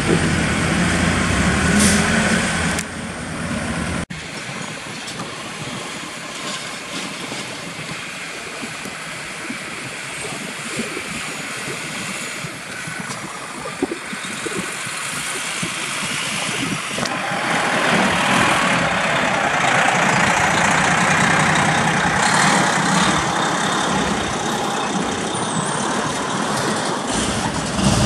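Heavy truck's diesel engine running as the truck and its trailer move over rough ground, with a deep engine note for the first few seconds. The engine and road noise grow louder over the last ten seconds as the rig passes close by.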